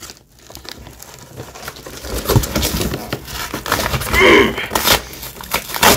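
Empty cardboard box being roughly handled, with scattered rustling, scraping and knocks, and a short voice-like sound (a grunt or breath) about four seconds in.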